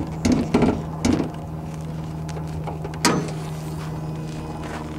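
Car hood being opened: several knocks and clunks from the hood latch and hood in the first second or so, then one sharper knock about three seconds in, over a steady low hum.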